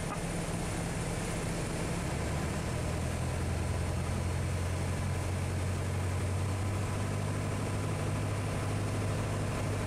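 Piper Archer's four-cylinder Lycoming engine and propeller running steadily in flight, heard from inside the cockpit. About two to three seconds in, the engine note drops lower and carries on steady.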